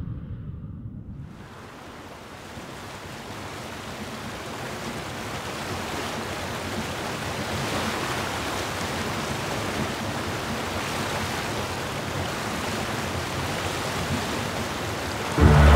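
Steady rushing of river water and wind, slowly growing louder. Music starts just before the end.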